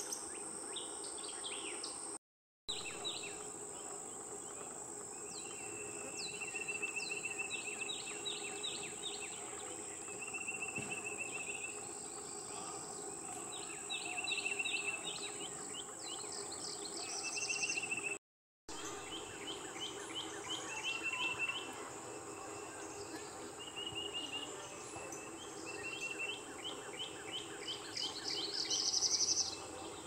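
A songbird singing repeated phrases: runs of quick downslurred whistles, each phrase followed by a short steady trill, over a steady high-pitched insect drone.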